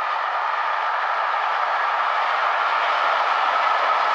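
GBRf Class 66 diesel locomotive, with its two-stroke V12 engine, passing at a distance while hauling a train of coaches. A steady rushing of engine and rolling noise grows gradually louder as it nears, with a faint steady whine held through it.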